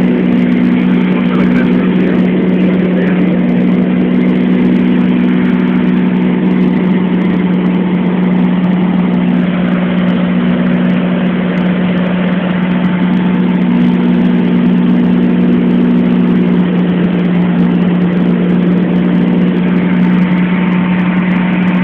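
Single-engine light aircraft's piston engine and propeller in cruise flight, heard from inside the cabin as a loud, steady drone. A slightly higher tone fades in and out over it.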